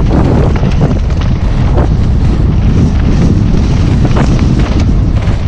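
Heavy wind rumbling on the microphone of a camera riding on a mountain bike as it rolls fast down a dry, stony dirt trail. A few sharp knocks and rattles come from the bike over the rough ground.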